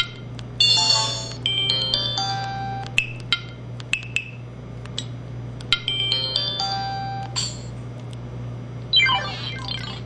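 Samsung SCH-E370 mobile phone's speaker playing short electronic ringtone and sound-effect clips one after another, with clicks in the pauses between them.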